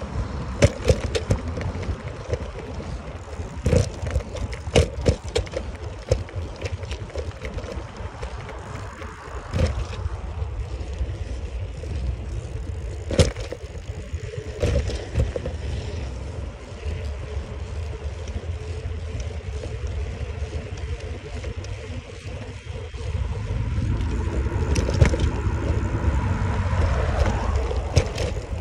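A bicycle being ridden, heard with wind rumbling on the microphone, and scattered sharp knocks and rattles from the bike. The rumble grows louder for the last few seconds.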